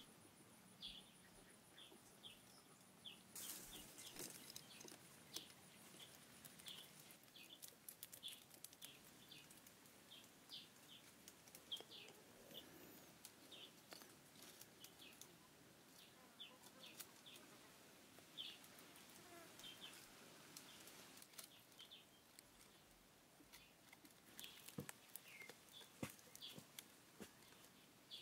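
Faint, short, high-pitched chirps or squeaks repeating irregularly throughout, with scattered light clicks and knocks.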